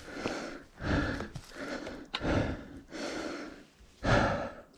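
A person breathing heavily, with about five hard breaths in and out roughly a second apart: a rider out of breath just after a crash.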